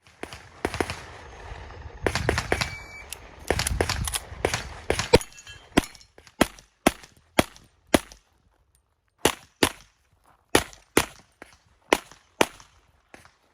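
Handgun shots fired in rapid strings, close together at first and then at roughly two a second, with a few short pauses between strings.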